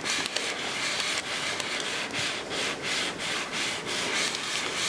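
Cricut Hat Press heat plate sliding back and forth under light pressure over butcher paper on a hat, a steady rhythmic rubbing of about three strokes a second, as a heat-transfer design is pressed on.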